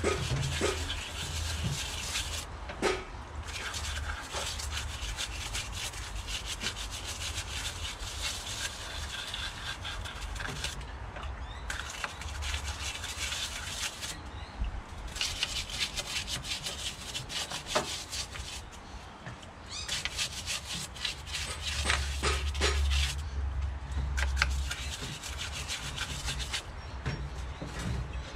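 Hand scrubbing of a differential housing during cleaning: rapid, scratchy back-and-forth rubbing strokes in runs of several seconds, broken by a few short pauses.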